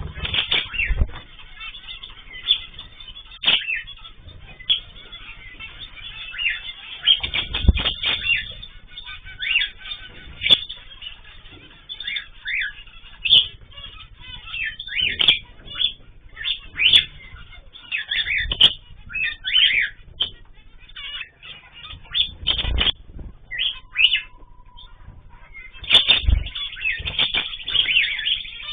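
Cage birds in an aviary, many short chirps and calls overlapping, with bursts of wing flapping as birds flutter about.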